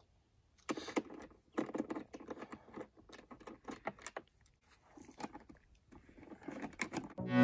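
Irregular clicks, rattles and rustles of a small hand tool and the plastic rear side panel of a Yamaha YZ125 dirt bike being handled as the panel is unbolted. Music comes in loudly at the very end.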